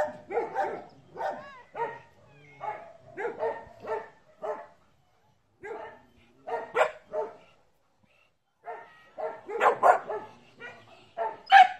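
Small dog barking in quick, high-pitched yaps, in runs broken by short pauses, loudest near the end.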